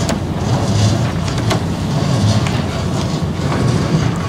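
Steady low mechanical rumble, with a few sharp clicks scattered through it.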